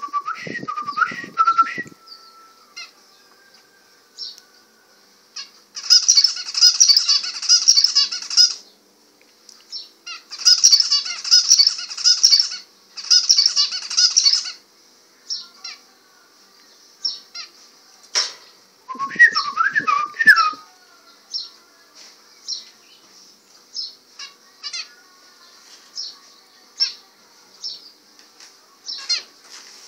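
Caged zebra finches calling and singing: short high calls scattered throughout, and three bursts of song of about two seconds each, close together, between roughly a fifth and half of the way in. Twice, at the start and about two-thirds through, there is a louder squeaky, gliding sound with a low rumble under it.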